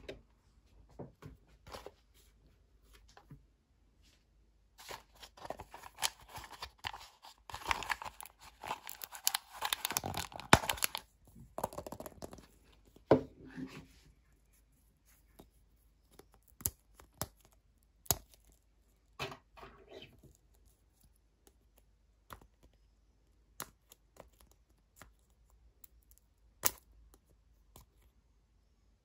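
Plastic toy packaging being torn and crinkled by hand for several seconds, then scattered light clicks and taps as a small plastic capsule is handled.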